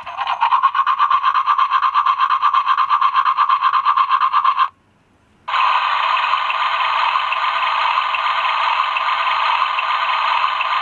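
Toy sound effects from a 1997 Mattel Dentist Barbie doll's small speaker. First comes a rapidly pulsing toothbrush-scrubbing sound for about four and a half seconds. After a brief pause comes a steady hissing water-pick sound.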